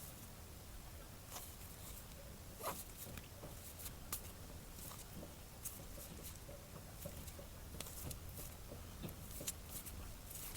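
Faint handling sounds of board-game components being unpacked: scattered light clicks and rustles of cardboard, plastic and cards, with a few sharper taps.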